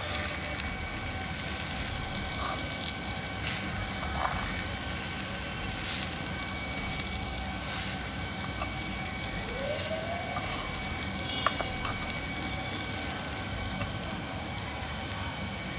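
Steady background hiss with a few faint clicks and scrapes from a spoon stirring boiled potato pieces in a small clay pot over a wood fire.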